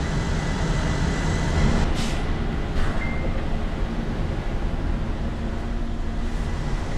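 Road-train truck's diesel engine idling steadily, heard inside the cab, with a short hiss about two seconds in.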